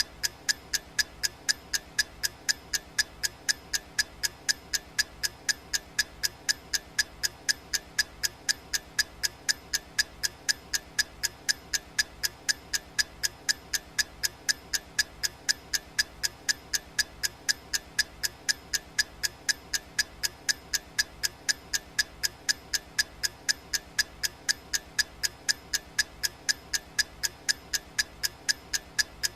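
Clock ticking sound effect: fast, evenly spaced ticks, several a second, steady throughout.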